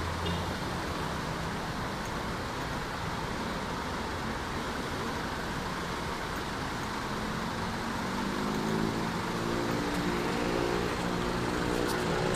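City road traffic: a steady rush of passing vehicles, with one vehicle's engine hum building and getting louder over the last few seconds.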